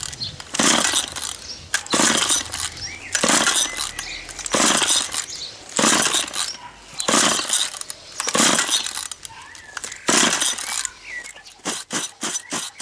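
Recoil pull-starter on the O&R two-stroke engine of a 1958 Little Wonder hedge trimmer, yanked again and again, about one pull every second and a quarter, with a quicker run of short clicks near the end. The engine does not catch and run; its pump no longer works.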